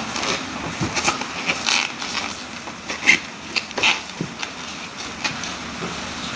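Hands rubbing and squeezing the foam insulation sleeves on the air conditioner's copper refrigerant pipes and brass flare-nut joints: irregular rustling and scraping with scattered short clicks.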